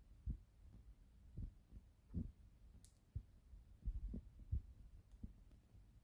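Faint, irregular soft low thumps, about one or two a second, with a single faint high click near the middle.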